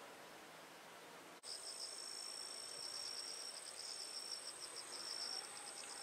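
Insects trilling, high-pitched: one steady buzz and a second, pulsing chirp. They start abruptly about a second and a half in, after faint hiss.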